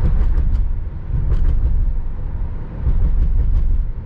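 A car running at highway speed: a steady low road and engine rumble that swells and dips, with three short clusters of sharp ticks.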